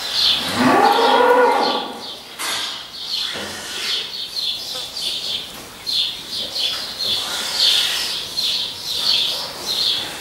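An animal's long low call, rising then falling in pitch, lasting about a second and a half near the start, over high chirps that repeat about two to three times a second throughout.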